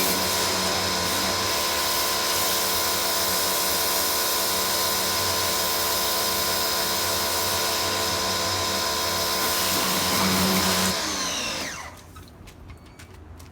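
Pressure washer running steadily with a whine and a hissing spray, then its motor winds down and stops about eleven seconds in, leaving faint dripping.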